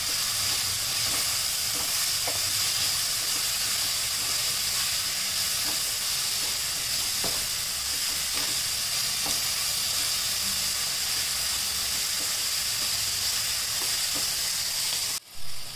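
Vegetables sizzling steadily in oil in a nonstick pan while being stirred with a wooden spatula, with faint scrapes and taps of the spatula. The sizzle cuts off suddenly near the end.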